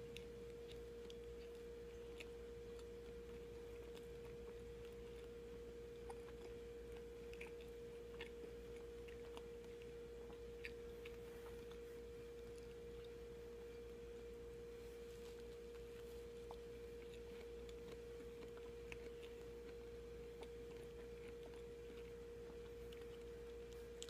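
Quiet chewing of a soft peach-and-whipped-cream sandwich, with faint scattered mouth clicks, over a steady hum.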